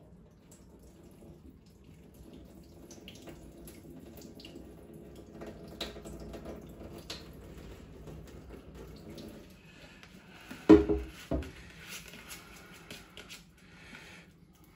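Water trickling and dripping as excess water is tipped out of a plastic tub of hemp seed soaking in water, into a kitchen sink. Two loud knocks close together come about three-quarters of the way through.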